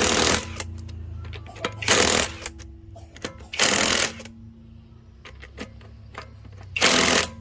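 Battery-powered impact wrench firing in short hammering bursts of about half a second: one just ending as the sound begins, then three more, about 2 s, 4 s and 7 s in. Faint clicks between the bursts and a low steady hum underneath.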